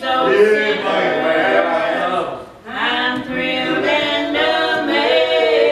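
Three women singing a gospel song together, holding long notes, with a short break for breath about two and a half seconds in.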